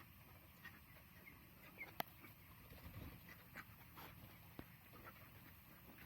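Faint, scattered peeping of young broiler chickens, with a sharp click about two seconds in.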